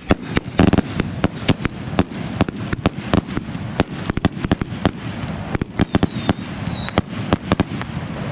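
Fireworks going off: a rapid, irregular string of sharp bangs and pops, dozens of them, with a short rising whistle about two-thirds of the way through.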